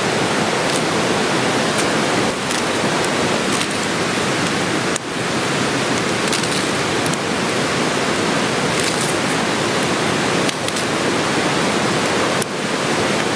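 Steady rushing of a mountain stream, running evenly throughout, with a few faint crisp snaps as napa cabbage leaves are torn apart by hand.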